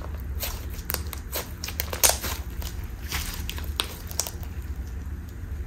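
Clear blue slime with small beads squeezed and stretched by hand: sticky squishing with a dense run of irregular crackling clicks and pops, the sharpest about two seconds in.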